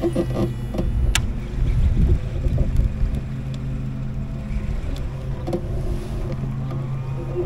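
Torqeedo electric outboard motor on a kayak running steadily, with a low hum, over water and wind noise. There is a sharp click about a second in.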